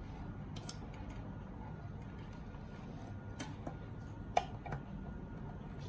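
Scattered light clicks and taps from handling wires and terminal connectors, the sharpest about four and a half seconds in, over a low steady hum.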